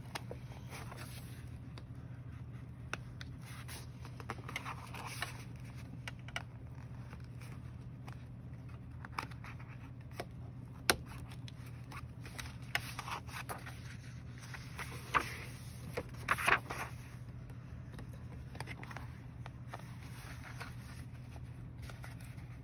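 Handling of paper journals and planners: scattered scrapes, rubs and light taps, the loudest a little past the middle, over a steady low hum.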